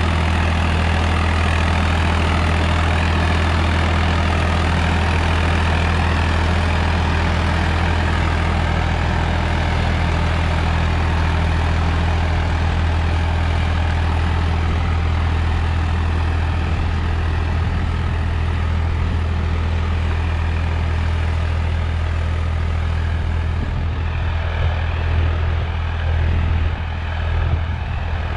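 Swaraj 855 XM tractor's three-cylinder diesel engine running steadily under load while it pulls a disc harrow through tilled soil: a steady low engine hum, its level wavering a little near the end.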